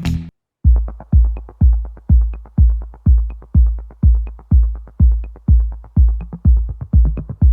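Background electronic music: a steady kick-drum beat of about two beats a second with light ticks over it, starting after a brief gap.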